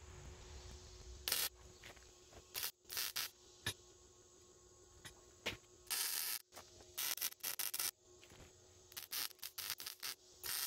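Electric arc welder tack-welding steel tubing: a run of short crackling bursts of the welding arc, each lasting a fraction of a second to about a second, with brief pauses between them.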